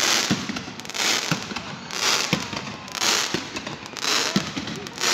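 Fireworks display going off in a steady barrage: a loud crackling burst about once a second, with sharp bangs in between.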